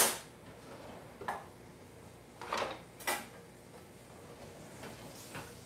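Kitchen handling clatter. A sharp knock comes right at the start, followed by several lighter knocks and clinks of utensils, pans or a drawer being handled, about a second apart, with a faint one near the end.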